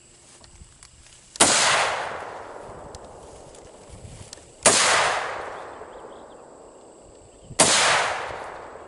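Three single rifle shots from an ATI Omni Hybrid AR-15 in 5.56, fired a few seconds apart. Each is a sharp crack with a tail that rings out for about a second.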